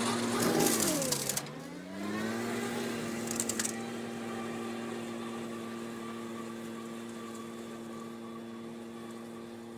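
Small engine running steadily; about a second in it bogs down sharply in pitch, then picks back up and settles into an even run. Two brief crackling bursts come near the start and about three and a half seconds in.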